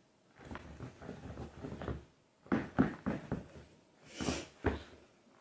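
Footsteps of chunky, lug-soled leather Chelsea boots on a tiled floor: soft shuffling at first, then a quick run of sharp heel knocks about halfway through. A short breathy hiss follows just after four seconds in.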